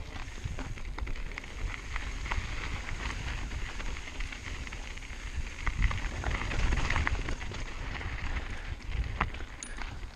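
Mountain bike rolling down a rocky dirt singletrack: tyres crunching over gravel and rocks with frequent clicks and rattles from the bike, under a low rumble of wind buffeting the chin-mounted camera's microphone.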